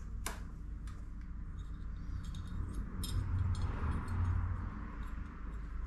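Small metal clicks and taps of hand tools and footpeg parts being worked at a dirt bike's footpeg mount. There is one sharp click near the start, then a scatter of lighter clicks, with a low rumble about three seconds in.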